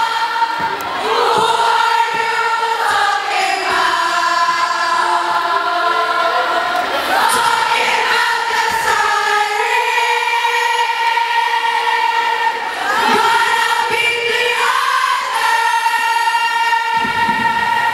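A large group of girls singing a cheer song together in unison, holding long notes that move to a new pitch every second or two.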